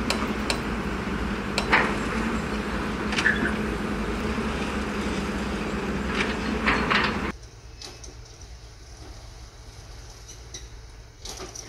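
Dump truck's diesel engine running steadily with a low hum while the raised bed tips out a load of dirt, with scattered knocks and clatter. About seven seconds in the sound cuts to a much quieter engine running, with one brief knock near the end.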